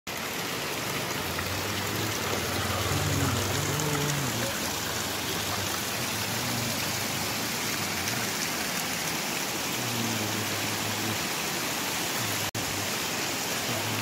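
Steady rush and splash of water pouring from roadside spring spouts onto the ground, with runoff trickling down a mossy wall. A low hum comes and goes twice, and the sound breaks off for an instant near the end.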